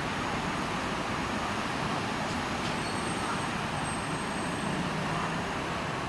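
Steady hum of city road traffic, with no single vehicle standing out.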